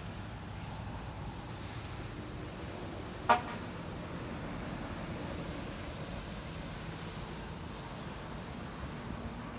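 A single brief, loud toot about a third of the way in, over a steady low hum.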